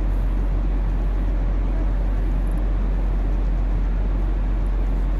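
Steady low rumble of an enclosed ship-loading conveyor belt running, with ammonium sulphate pouring down its outlet chute and dust suppression hopper into the hold.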